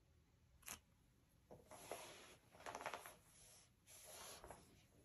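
Faint rustling of plastic binder sleeves as photocards are slid into their pockets, in a few short bursts after a light tick about a second in.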